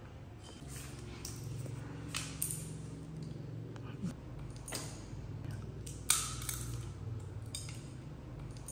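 Scattered sharp cracks and clicks of sunflower seeds being cracked open with the teeth and picked from a plate, the loudest about six seconds in, over a low steady hum.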